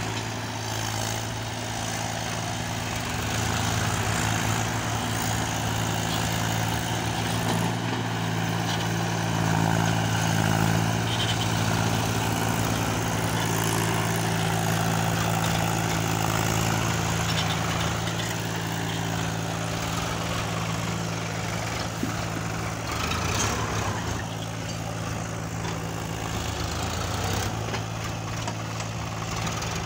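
Mahindra 575 DI tractor's diesel engine running steadily under heavy load, hauling a fully loaded trolley of earth uphill.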